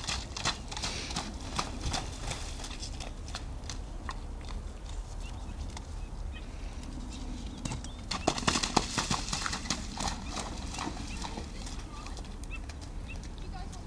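A horse's hooves splashing through a shallow, muddy water jump, strike after strike. About eight seconds in comes a louder cluster of hoof strikes and splashing.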